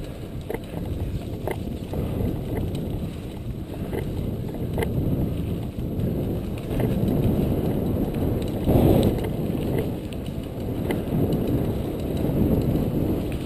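Wind rushing over the microphone as a mountain bike rolls over rough, potholed asphalt, with tyre and road rumble and a few sharp clicks and rattles from the bike over bumps. The rumble swells loudest about nine seconds in.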